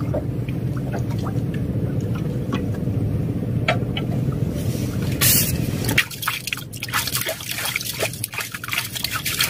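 Water trickling and dripping over a steady low hum that cuts off about six seconds in. A short rush of noise comes just after five seconds, and scattered small clicks and knocks follow.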